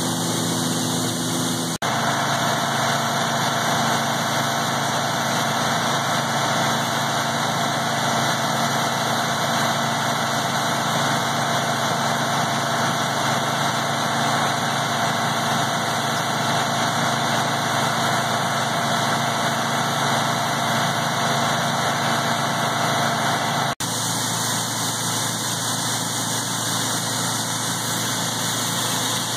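International 966 tractor running a PTO-driven grinder-mixer: a steady engine and hammer-mill drone, broken by brief cuts about two seconds in and near the end.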